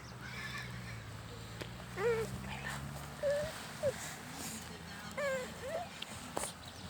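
An animal giving several short, high whining calls that glide up and down, about six in a row. A low steady hum runs underneath for the first half and then stops.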